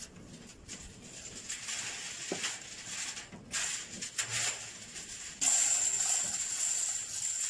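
Steel lifting chains of a chain block rattling and clinking as the hoist motor hanging from them is handled. About two-thirds of the way through, a louder steady rushing noise sets in suddenly.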